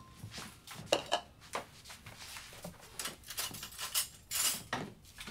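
Kitchen clatter: bowls and utensils clinking and knocking on a counter, in an irregular run of sharp clicks, with a longer noisy scrape about four and a half seconds in.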